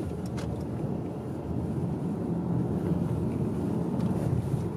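Steady low rumble of a car driving, engine and tyre noise heard from inside the cabin, with a couple of faint clicks just after the start.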